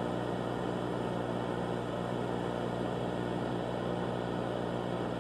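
Steady electrical hum over a layer of hiss, even in level and unchanging, cutting in abruptly from dead silence.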